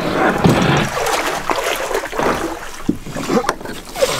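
Water splashing and sloshing around a canoe hull as the canoe is hauled in to the shore, with a few sharp knocks.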